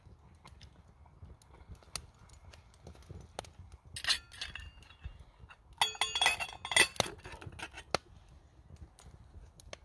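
Small twig fire crackling in a folding wood-burning stove, with scattered light pops. About two-thirds of the way through, a titanium lid is set onto the titanium pot with a run of metallic clinks and ringing, the loudest sound here.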